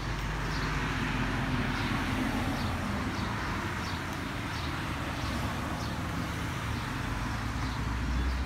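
Steady road traffic noise from passing cars, with a low rumble, and faint high chirps repeating about once a second.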